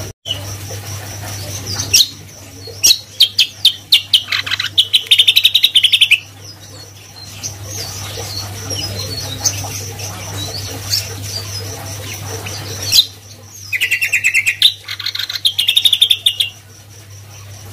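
A caged cucak kombo singing in two loud bouts, about two seconds in and again about thirteen seconds in. Each bout is a string of rapid, sharp notes running into a fast chattering trill. A steady low hum runs underneath.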